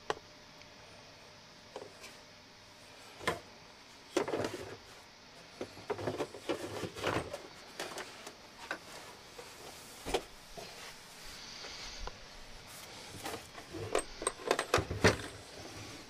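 Hard plastic tool cases and PEX crimping tools being handled: irregular clacks, knocks and rattles with some rustling. There is a sharp knock about ten seconds in and a quick run of clacks near the end.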